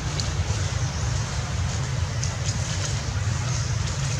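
Steady low rumble of wind buffeting the microphone, with a constant hiss over it.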